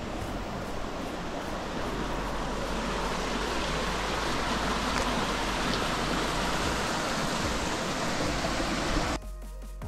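Mountain stream rushing over rocks in small cascades, a steady noise that grows louder partway through. It cuts off suddenly near the end as electronic music comes in.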